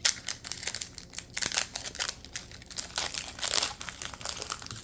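Foil Pokémon booster pack wrapper crinkling in the hands as the pack is handled and opened, in a busy run of irregular crackles.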